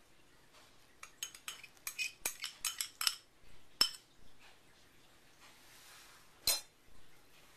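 Small glass measuring cup clinking against a glass measuring jug as it is tipped and tapped to empty its liquid: a quick run of about ten clinks starting about a second in, then one more clink near the end.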